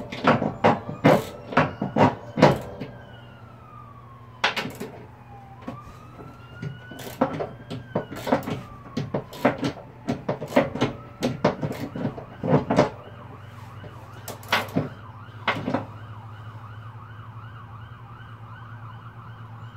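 Socket ratchet wrench clicking in quick runs of strokes on a spindle-housing nut that binds on rough threads, the clicks stopping about two-thirds in. Under it, a siren wails, rising and falling slowly, then switches to a faster warble for the rest.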